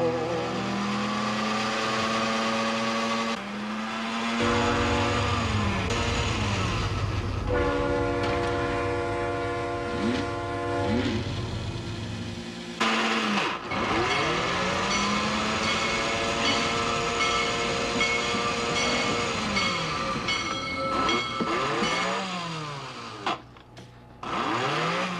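Lionel toy electric trains running: motor whines rise and fall in pitch as the trains speed up and slow down. An electric train horn sounds in long steady blasts over a low electrical hum through the middle.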